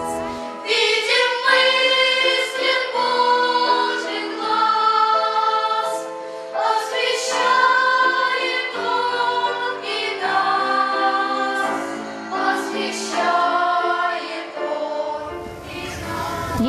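Choir singing slow, held notes, with no deep bass underneath.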